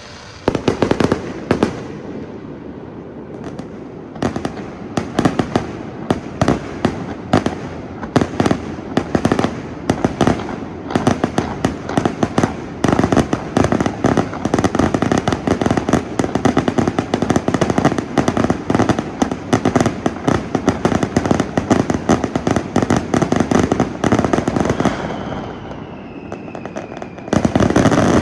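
Fireworks display: a rapid, continuous barrage of aerial shell bangs and crackles. About 25 seconds in there is a short lull with a faint falling whistle, then the barrage starts again louder.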